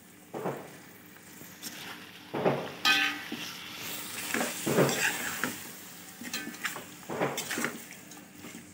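A perforated steel ladle scraping and knocking against an aluminium pot in irregular strokes as thick masala gravy with vegetables is stirred, over a light sizzle from the hot pot.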